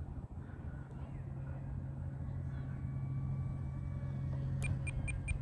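Wind noise on the microphone under a steady low drone, with the faint high whine of a small electric RC flying wing's motor and three-bladed propeller overhead. Near the end, a quick run of short high beeps, about five a second.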